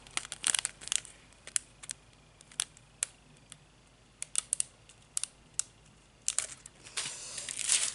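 A small plastic zip bag of drop-shaped diamond painting drills being handled, making scattered sharp crinkles and clicks. It builds to a longer, denser rustle near the end.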